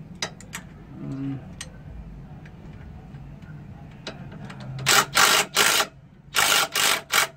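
Ratchet wrench clicking as it turns the belt tensioner's adjusting bolt to slacken an accessory belt on a Nissan 300ZX: a few separate clicks, then two fast runs of ratcheting, each about a second long, about five and six and a half seconds in.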